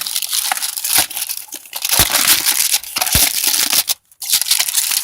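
Packaging being crinkled and torn open by hand: a dense run of crackly rustling, breaking off briefly about four seconds in.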